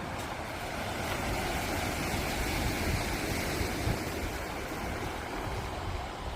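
Steady rushing of wind and sea surf, with low rumbling wind on the microphone, swelling slightly in the middle.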